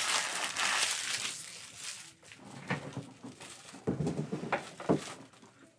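Trading-card packaging crumpled by hand, a dense crinkling for the first two seconds or so. Then a few separate knocks and clatters as things are handled on the table.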